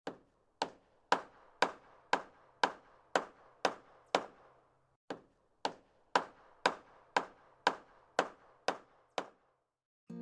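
Hammer blows on wood, evenly spaced about two a second, with a short pause near the middle, stopping about a second before the end.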